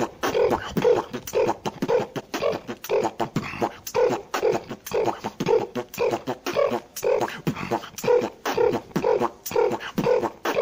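A man beatboxing solo: a steady groove of mouth drums with heavy hits about twice a second and sharp clicks and snares between them.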